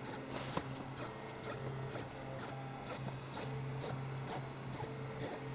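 Stepper motors of a home-built delta 3D printer humming through a series of short moves during its automatic bed-leveling probe run. The tone starts and stops every half second or so, with light clicks scattered through.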